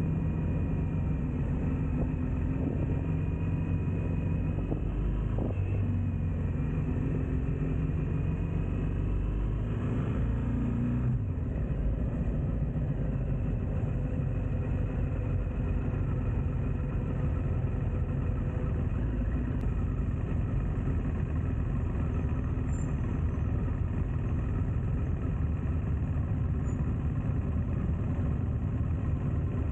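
Motorcycle engine running on the move, its pitch rising about ten seconds in, then giving way to a steady rush of road and wind noise.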